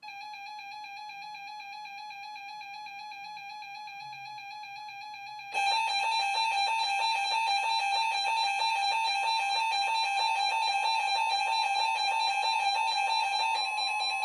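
Weather radios sounding their electronic alert alarms for a flash flood warning: a steady, slightly warbling tone, joined about five and a half seconds in by a second, louder alarm that pulses rapidly.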